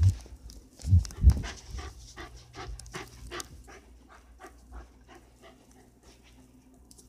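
Dog panting right at the microphone, about three quick breaths a second, with a few loud low thumps in the first second and a half.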